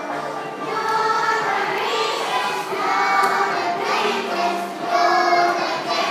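A group of children singing together in a hall, with long held notes.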